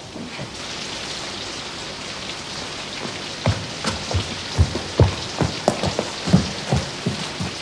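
Heavy downpour: rain falling steadily with an even hiss, and from about three seconds in a string of separate thumps over it.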